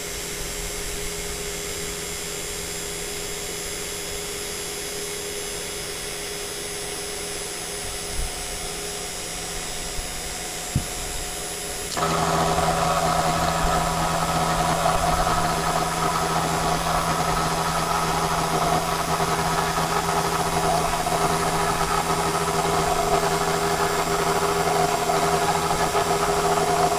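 A CNC router's 500-watt spindle running steadily, its motor fan slightly out of balance. About twelve seconds in the sound steps up and stays louder as the bit plunges and starts another spiral cutting pass into the oak dowel.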